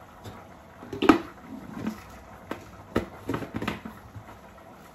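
Hard plastic knocks and clicks from a bullet-blender cup being handled and its blade base screwed on: one sharp knock about a second in, then a quick cluster of clicks near the end. The blender motor is not running.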